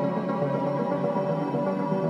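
Ambient background music with long held chords.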